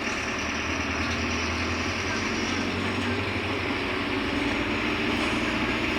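Mercedes-Benz OF-1721 Bluetec 5 city bus running, its diesel engine giving a steady drone.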